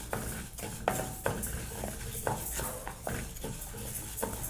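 Wooden spatula stirring split moong dal as it roasts in a nonstick pan: the lentils rustle and scrape against the pan in short, irregular strokes.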